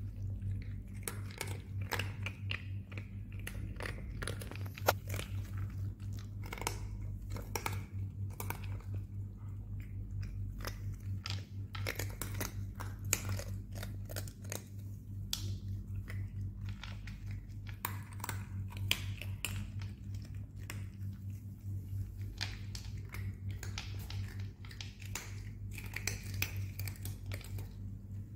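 Cats eating dry kibble: a steady run of small crisp crunches and clicks as they chew and pick pieces from a plastic feeder bowl, over a constant low hum.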